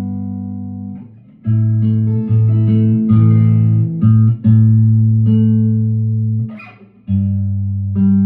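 1958 Guild Aristocrat guitar being played. A low note rings and fades, then comes a phrase of plucked low notes and double-stops, a short scratchy string noise, and a fresh low note ringing near the end.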